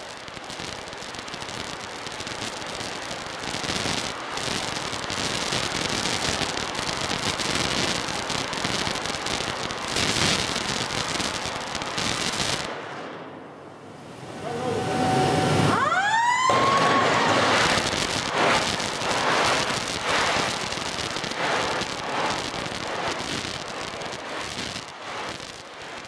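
Fuchs 45-tonne UHP electric arc furnace arcing on steel scrap: a loud, continuous, rough crackle. The crackle eases off about halfway through, a short rising whine sounds, and then the crackle comes back full.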